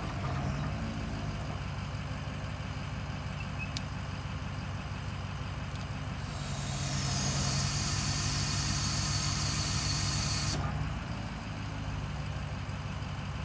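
Geoprobe direct-push drill rig's engine running steadily. About six seconds in, a loud hiss fades in while the hydraulic control levers are worked and the probe head moves. The hiss cuts off suddenly about four seconds later.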